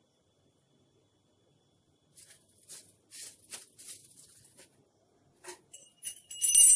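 A few short, scratchy rustling sounds, then near the end a small bell starts ringing with a bright, high ring, the loudest sound here, as the evening prayer begins.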